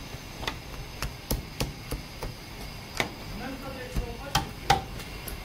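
Knife cutting slits into a whole raw lamb carcass on a steel tray: a string of irregular sharp taps and knocks, about a dozen, the loudest a little past the middle and near the end.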